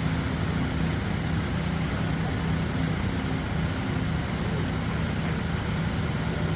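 Fire-scene ambience: a fire truck's engine running with a steady low hum that pulses, over a constant rushing noise.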